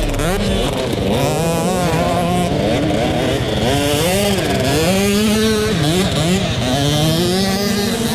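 Motocross dirt bike engines at race pace, the pitch rising and falling again and again as the riders work the throttle and shift. More than one bike is heard at once.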